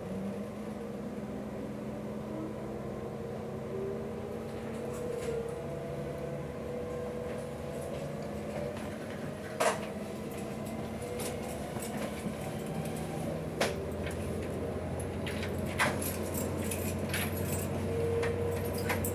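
Cabin sound of a Bombardier Talent class 643 diesel railcar pulling away: steady diesel engine and drive hum with a few tones slowly rising as it gathers speed, not really loud. A handful of sharp clicks and light rattles from the interior and wheels on the track.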